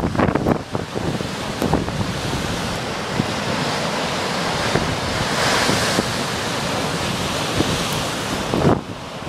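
Storm waves breaking and surging against a rocky lakeshore, a steady rushing surf with one bigger hissing wash about halfway through. Strong wind buffets the microphone, with gusty knocks in the first second.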